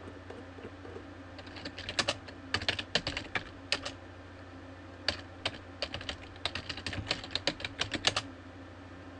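Typing on a computer keyboard: two quick runs of keystrokes about a second apart, each a few seconds long.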